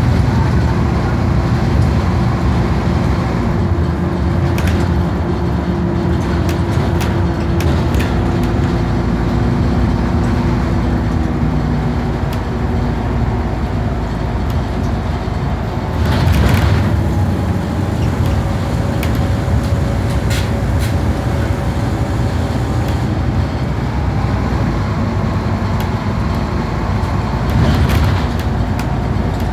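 Engine and road noise heard from inside a moving bus, a steady rumble, with brief louder rattles about 16 seconds in and again near the end.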